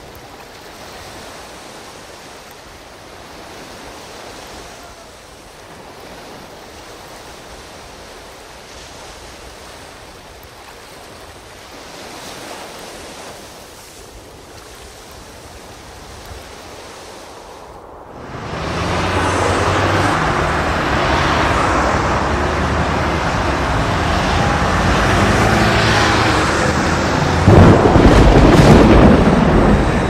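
Sea surf and wind with no music. A soft, even wash turns into a much louder rushing noise about two-thirds of the way through, loudest near the end.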